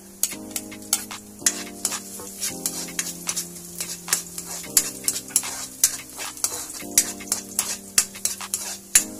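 Metal ladle scraping and knocking against a wok in quick, irregular strokes while garlic and ginger sizzle in hot oil.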